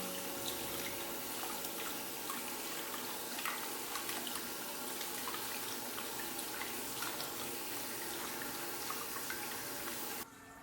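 Water running steadily, with small splashes and drips, for a kitten's bath. It cuts off suddenly about ten seconds in.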